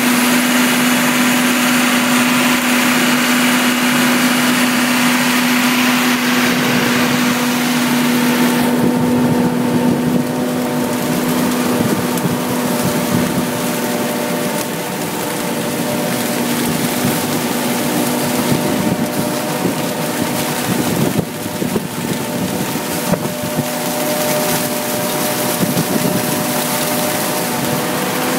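John Deere 4730 self-propelled sprayer's diesel engine running steadily under load as it drives through tall corn, a constant drone with a steady hum. A high hiss over it drops away about nine seconds in.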